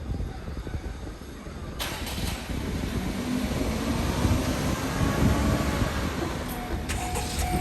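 Train running by on the tracks, a rumble with a hiss over it that rises sharply about two seconds in and keeps building.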